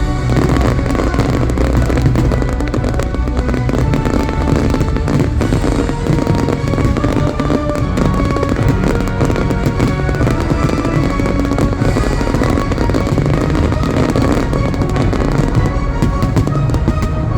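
Fireworks bursting and crackling in rapid, dense succession over loud show music.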